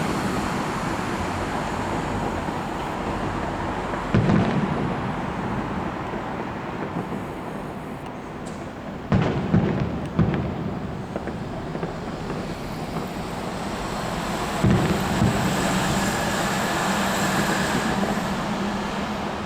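Aerial fireworks bursting with deep booms: one about four seconds in, three in quick succession around nine to ten seconds, and another near fifteen seconds, over a steady wash of noise.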